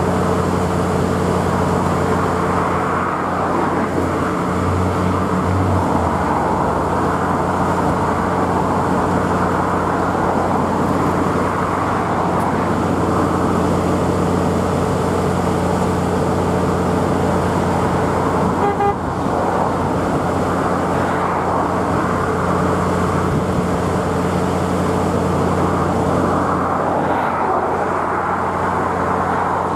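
Class 66 diesel-electric locomotive's two-stroke V12 engine running with a steady low drone as it hauls a loaded freight train past, with the noise of the wagons on the rails over it.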